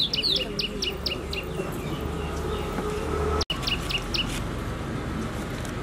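Small birds chirping in quick runs of short, high, downward-sliding calls, busiest at the start and again just past the middle, over a steady background hum.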